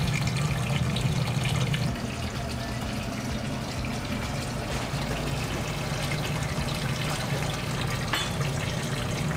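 Broth boiling in a large stainless-steel stockpot: a steady bubbling, watery hiss with a constant low hum underneath.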